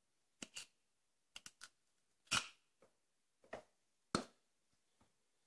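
Aerosol can's plastic cap tapping and knocking against a tiled wall while crushing cockroaches: about a dozen short, sharp clicks at uneven intervals, the loudest a little past two seconds and just after four seconds.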